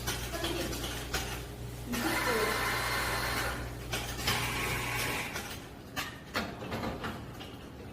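Coffee machine motor humming steadily, cutting off about five seconds in, followed by a few clicks and knocks of equipment being handled.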